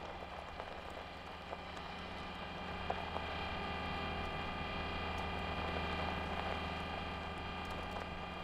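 Steady, layered machine hum with several high whining tones, used as the sound of the Curiosity rover's motors in an animation. It grows a little louder about three seconds in, with a few faint ticks.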